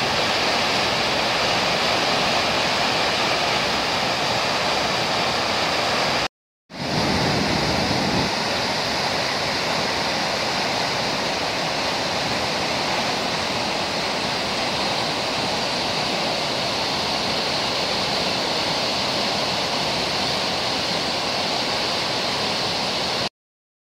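Steady, loud rushing of a river in flood after heavy rain, its white water churning. The sound drops out for a moment about six seconds in and stops suddenly near the end.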